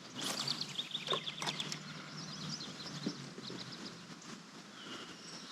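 Birds chirping: many short, irregular high notes, busiest in the first couple of seconds and thinning out after.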